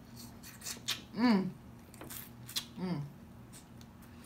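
A woman eating sauce-covered chicken and sucking it off her fingers: wet mouth clicks and smacks, with two short falling 'mmm' hums of enjoyment, about a second in and again near three seconds.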